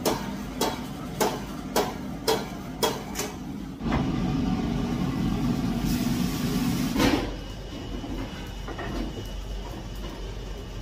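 Metal ladle clanking against a wok about twice a second as fried rice is stirred and tossed over the flame. About four seconds in, a louder steady sizzling rush from the wok takes over and stops sharply about three seconds later, leaving a steady low rush underneath.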